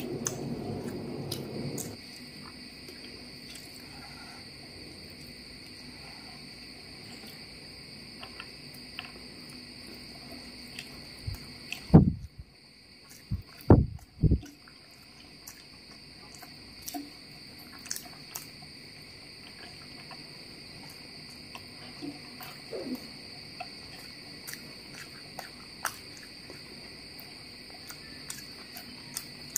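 Quiet hand-eating sounds: fingers mixing and picking up mutton biryani rice on a plate, with small clicks of chewing, over a steady high-pitched background whine. A few low thumps about twelve to fourteen seconds in are the loudest sounds.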